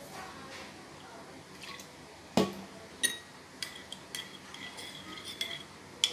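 A metal spoon stirring beaten egg in a ceramic bowl, clinking and scraping against the bowl again and again from about three seconds in, with a faint ring after each touch. A single sharp knock comes just before the stirring starts.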